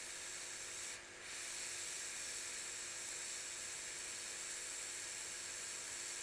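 Steady faint hiss with no distinct events, dipping briefly about a second in.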